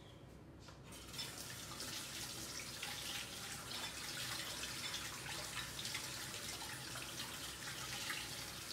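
Water running from a kitchen tap into a sink, a steady splashing rush that starts about a second in.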